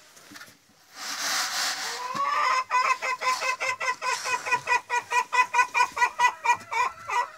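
A chicken giving a rapid, even run of loud clucks, about four a second, lasting several seconds. It is preceded by a brief rustle.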